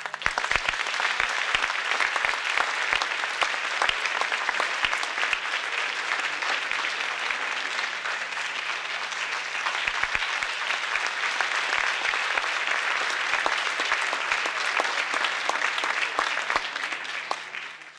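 Audience applause: many people clapping in a dense, even patter that starts at once and fades out near the end.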